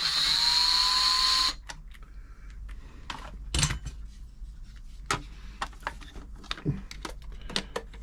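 Cordless electric screwdriver running for about a second and a half at the start, its motor pitch rising slightly as it drives a case screw in. It is followed by scattered small clicks and knocks of screws and parts being handled on the bench.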